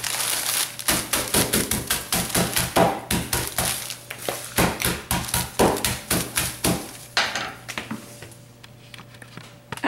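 Metal meat mallet pounding clumped washing-soda powder in a zip-top plastic bag on a kitchen countertop, crushing the lumps, about three blows a second. The blows stop about seven seconds in.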